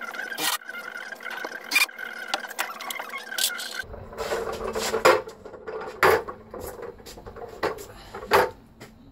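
Sharp clicks and small metallic knocks from work on a steel cart frame. About four seconds in, the sound changes to the steel cart's swivel casters rolling on concrete, with several loud knocks and bumps.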